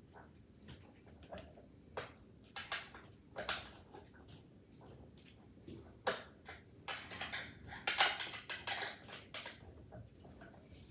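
Scattered clicks, knocks and short scrapes of table parts and metal hardware being handled during assembly, with a busier run of scraping and rattling about seven to nine seconds in.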